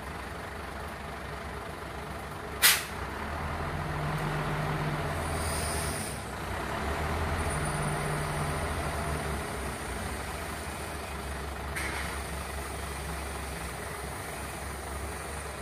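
Hino truck's engine running to power its truck-mounted crane, engine speed rising and falling as the crane lifts. A single loud, sharp knock about two and a half seconds in, and a fainter one near twelve seconds.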